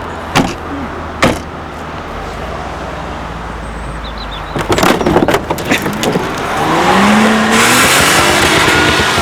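Two car door slams in the first second or so, then an old Jaguar XJ saloon's engine running steadily. After a few knocks around five seconds in, the engine note climbs as the car moves off under a loud rush of noise.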